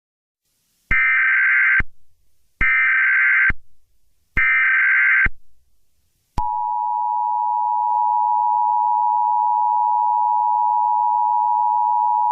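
Emergency Alert System tones: three short bursts of SAME header data, each just under a second, then the steady two-tone EAS attention signal starting about six seconds in.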